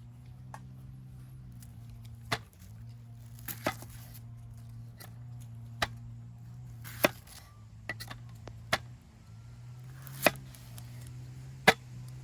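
Scattered sharp knocks and clicks from handling food and utensils, about nine in all at irregular intervals, over a steady low hum.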